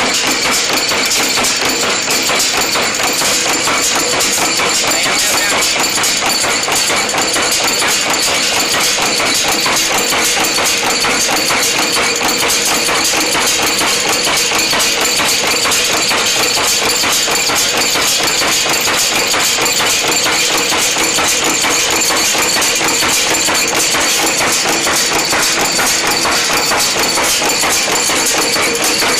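N-6 wire nail making machine running at speed, a loud, steady, rapid metallic clatter of its repeated strokes as it cuts and heads nails from wire.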